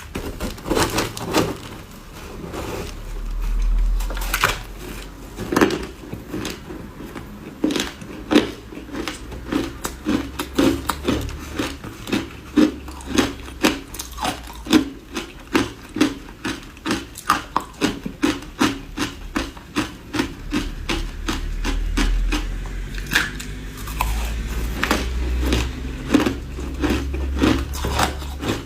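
Ice dusted with matcha powder being bitten and chewed close to the microphone: a fast, steady run of crisp crunches, about three a second at the busiest, with a low rumble under it.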